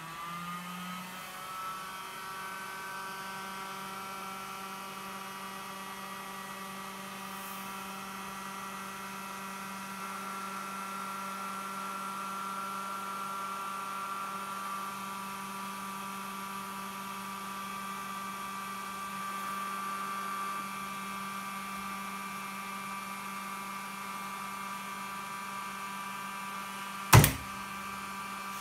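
Rockler benchtop edge bander running, its motor rising in pitch over the first second and then holding a steady whine as a panel is fed against the heated, pre-glued edge banding. A single sharp snap comes near the end.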